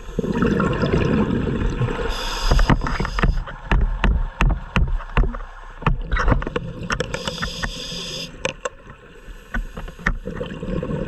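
Scuba diver breathing through a regulator underwater: exhaled bubbles rumble and gurgle past the mask, with crackling bubble pops, and the demand valve hisses on each inhalation, about 2 seconds in and again about 7 seconds in.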